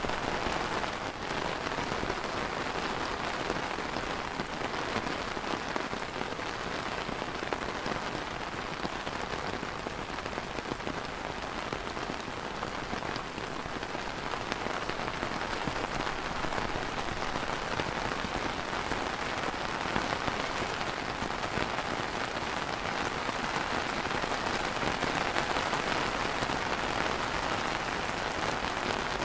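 Light rain falling steadily on a clear plastic umbrella canopy: a dense, even spatter of small drop ticks with no let-up.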